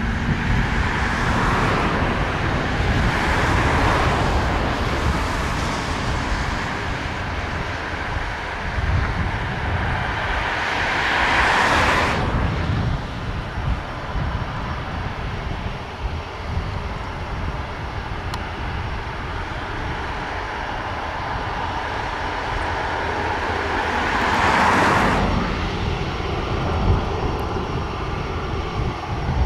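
Jet airliner engines running at a distance, a continuous hiss and rumble. It swells twice, then drops off abruptly about twelve seconds in and again near twenty-five seconds.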